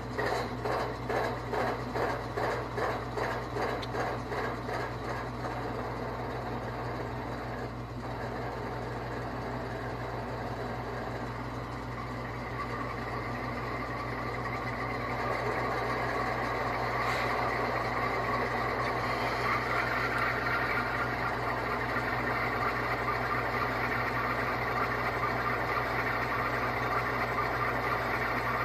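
Diesel locomotive sound from an ESU LokSound decoder played through the speakers of an HO-scale GE ES44AC model. It pulses at about two beats a second for the first few seconds, then settles into a steady running sound that grows louder about halfway through, as when the throttle is notched up.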